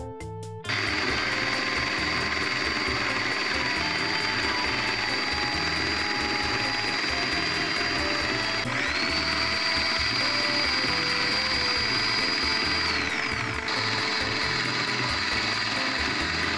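Paper shredder's AC motor and gear train running with the cover off: a steady mechanical rattle with a high whine, starting suddenly about a second in. The whine dips and climbs back about halfway through, then drops away a few seconds before the end while the running continues.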